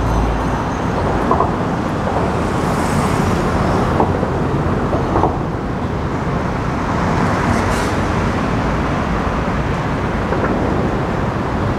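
Steady rush of road traffic noise, with a few faint clicks.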